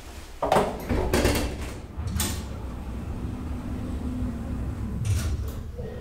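Stainless-steel inner doors of an ASEA-Graham elevator modernised by KONE sliding shut with a clatter of knocks about half a second in. A steady low hum from the lift follows and fades out near the end.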